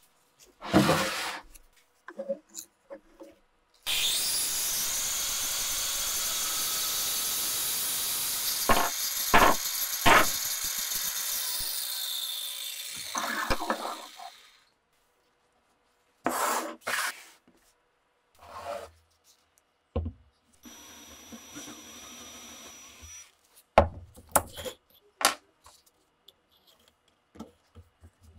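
Wooden block knocked and set down on a wooden workbench, then a power saw cutting steadily through the wood for about ten seconds. Later a cordless drill runs briefly, among more wooden knocks and handling.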